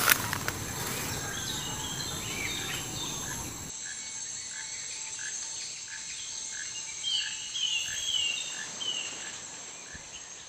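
Tropical forest ambience: a steady high insect drone with birds calling in short falling chirps, and a short note repeating about twice a second through the second half. A sharp snap right at the start; the sound fades out near the end.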